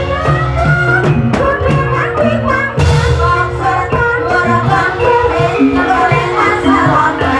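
Javanese gamelan music with a singer's voice and hand-drum strokes, the accompaniment for an ebeg hobby-horse dance, played loud through a loudspeaker stack.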